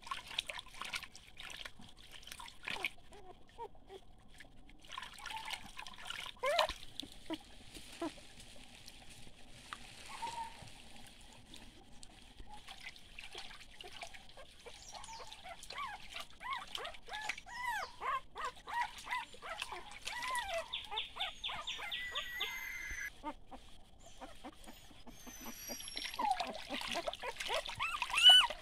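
Newborn puppies whimpering and squealing in short, high, rising-and-falling cries, few at first and coming thick from about halfway on. Beneath them, shallow stream water trickles and splashes as a puppy is dipped and washed in it.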